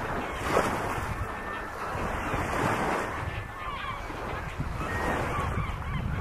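Wind buffeting the microphone over a steady chatter of many short calls from a nesting colony of brown pelicans and cormorants.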